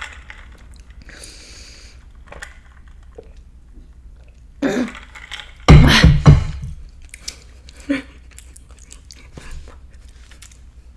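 A woman's mouth and throat noises close to the microphone while she chews a foul-tasting jelly bean: wet chewing and breathing, with a few loud gagging sounds about five to six seconds in.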